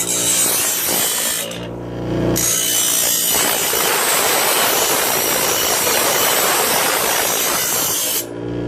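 Bench grinder grinding an edge onto a steel saw-blade ice chipper, a dense grinding noise. Around a second and a half in the steel comes off the wheel briefly and only the grinder's motor hum is heard. The grinding then resumes until just before the end.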